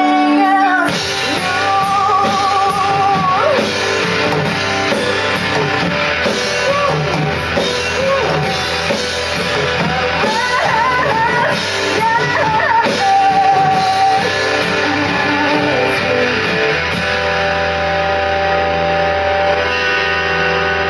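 Rock band playing live: electric guitar and drum kit, with a singer's voice carrying the melody through the middle and held chords near the end.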